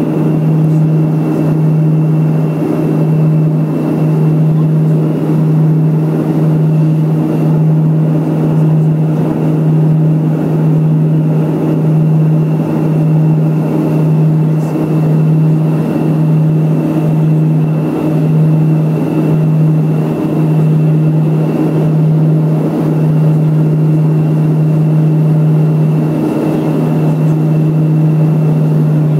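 Cabin drone of a Let L-410 UVP-E20's twin Walter M601E turboprop engines and propellers in cruise flight: a loud, steady low hum that pulses slowly and evenly, with a fainter high whine over it.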